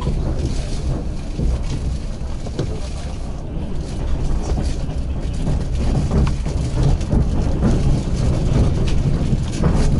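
Passenger train running along the track, heard from a carriage window: a steady low rumble of wheels on rails with scattered clicks and knocks.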